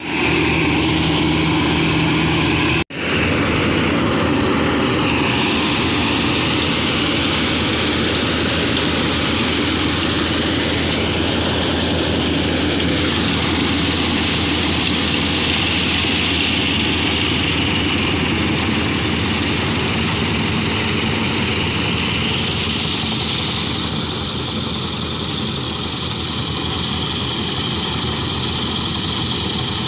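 New Holland combine harvester running at work cutting rice: a loud, steady drone of its engine and threshing machinery. The sound cuts out for a split second about three seconds in.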